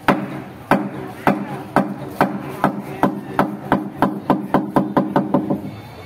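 Ceremonial percussion: sharp knocking strikes, about two a second at first, speeding up to about four or five a second, then breaking off shortly before the end, over a steady low pitched drone.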